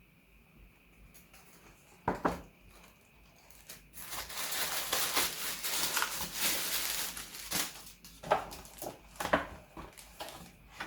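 Packaging being unwrapped by hand: a sharp knock, then a few seconds of dense crinkling and rustling, then a few light knocks as the items are handled.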